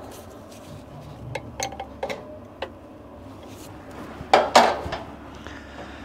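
Light metallic clinks and taps of a steel high-pressure fuel line and an injector block-off cap being handled and fitted on a diesel common rail, with a louder clatter about four seconds in.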